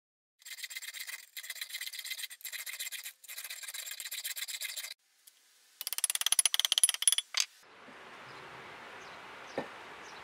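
Hand file rasping on the edge of a thin steel plate in four runs of quick strokes. Then a burst of rapid light hammer taps on the steel plate as it is seated onto a wheel hub, with a metallic ring, and one last tap.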